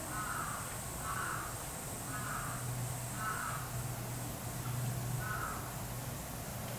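A bird giving a series of five short calls, roughly one a second, stopping about five seconds in, over a steady low hum.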